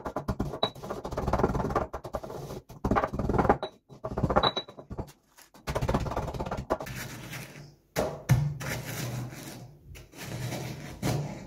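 Stone pestle pounding and grinding biscuits in a stone mortar, crunching them into crumbs. It comes in bouts of a second or two, with short pauses between them.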